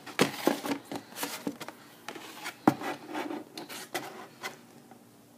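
Rustling and scraping of cardboard and packaging being handled as an item is taken out of a cardboard box, with irregular clicks and a sharper knock about two and a half seconds in; it dies down near the end.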